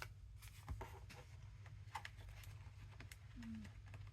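Faint rustling and soft taps of paper and card being handled and shifted into line, over a steady low hum.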